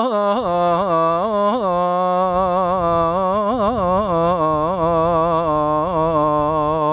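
A man's unaccompanied voice reciting the sela, the Islamic call chanted in Turkey. He holds one long melismatic note on the closing syllable of "yâ şefîallah" and decorates it with quick wavering turns.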